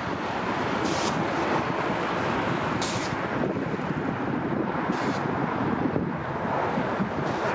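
Jet airliner engine noise, a steady rumble, with wind buffeting the microphone and short high hisses about every two seconds.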